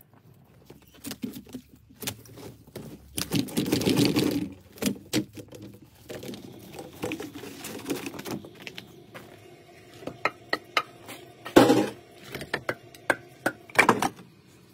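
Irregular knocks, clacks and scraping from handling things in a snowy yard, with a denser scraping stretch early on and two louder clunks later; near the end, split firewood logs knocking together as they are picked up.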